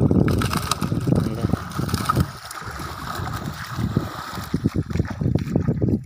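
Water splashing and sloshing as a person wades through knee-deep river shallows carrying a net bag of fish, with wind buffeting the microphone.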